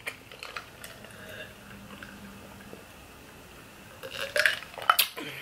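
Faint mouth clicks, then about four seconds in, a few louder gulps as juice is drunk from a glass.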